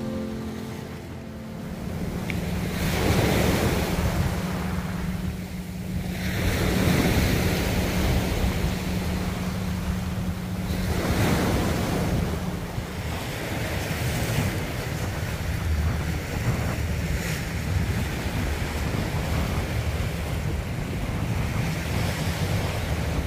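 Sea waves washing onto the shore, surging and falling back every few seconds, with wind buffeting the microphone as a low rumble.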